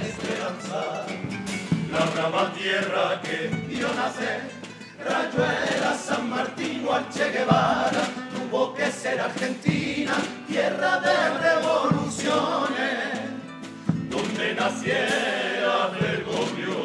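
Carnival comparsa's male choir singing together to acoustic guitar accompaniment.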